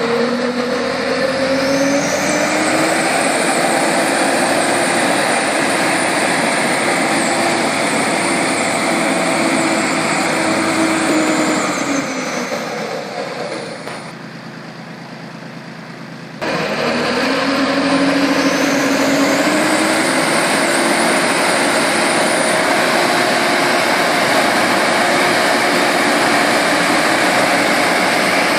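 Small tractor's engine driving the PTO-powered air blower of a VMA electrostatic sprayer. The blower spins up with a rising whine and runs steadily, winds down and drops away about 12 seconds in, then comes back abruptly about 16 seconds in, spins up again and runs steadily while spraying.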